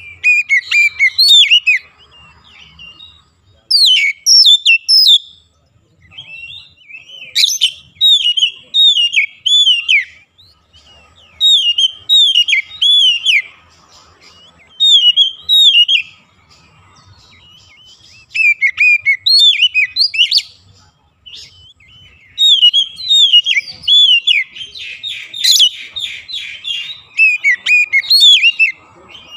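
Oriental magpie-robin singing: loud one-to-two-second phrases of rapid, slurred whistled notes, one after another with short pauses, and a fast buzzy rattle about twenty-five seconds in.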